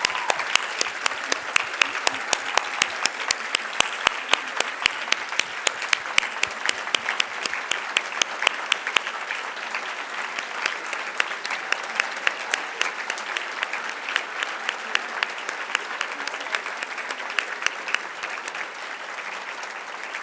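Audience applauding, with dense sharp claps for the first half that thin out and fade after about nine seconds.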